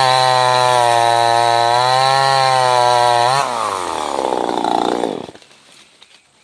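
Wudee 25cc two-stroke top-handle chainsaw running at high revs. A little over three seconds in, the revs drop, and the engine dies away and stops about five seconds in.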